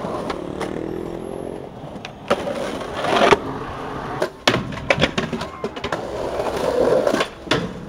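Skateboard wheels rolling on rough pavement, with several sharp clacks of the board's tail popping and the board landing and hitting concrete.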